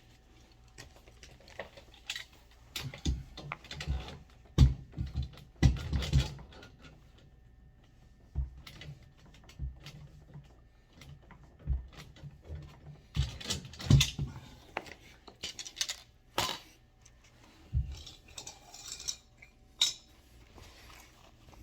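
Metal hand tools and fittings clinking and knocking as they are handled, in irregular clusters of sharp clicks with short pauses; the loudest knocks come about four and a half seconds in and again around fourteen seconds.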